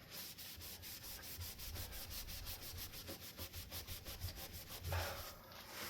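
A cleaning wipe rubbed briskly back and forth over a dirty Hunter Stratford ceiling fan blade, in quick even strokes of several a second, with one louder scuff near the end.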